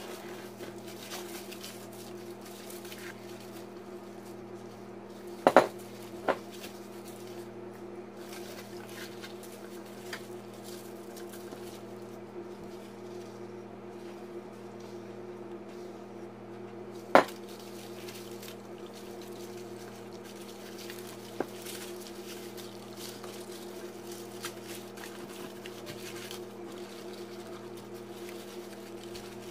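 Gloved hands rubbing an oily spice marinade into a whole raw chicken in a foil-lined pan: soft squishing and crinkling of foil. Four sharp clicks or knocks, two close together and the loudest about halfway, over a steady hum.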